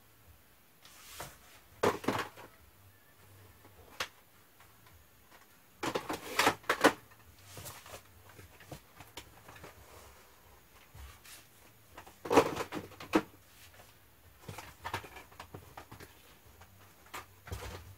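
Plastic cassette tape cases clattering and clacking as handfuls are pulled from shelves and set into a cardboard box. The clatter comes in several bursts a few seconds apart, with quiet between.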